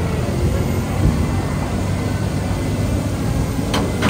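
Diesel tow truck engine running close by, mixed with the steady rush of water gushing from a broken fire hydrant. Two short sharp clacks near the end.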